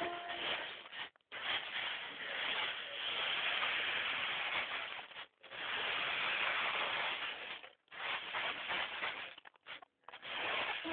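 Battery-powered RC rock crawler's electric motor and gears running on low batteries, a steady whirring hiss that comes in several spurts with brief stops between them.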